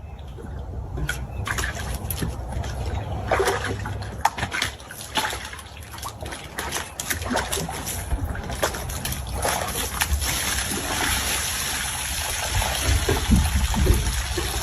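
Water splashing and trickling, with many small clicks and splashes, getting busier toward the end.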